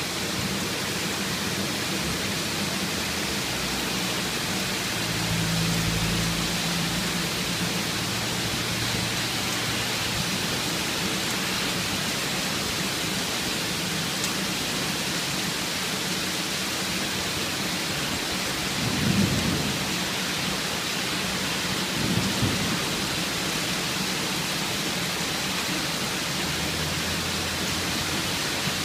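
Heavy rain falling steadily, with thunder: a low rumble about five seconds in and two short, louder rumbles around twenty and twenty-two seconds.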